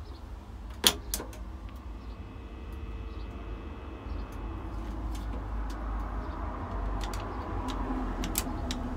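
BT payphone handset lifted off its hook with a sharp clack about a second in, then a steady tone from the earpiece for a couple of seconds. Short clicks of the payphone's metal keypad buttons being pressed follow, several of them near the end, over a low rumble of traffic.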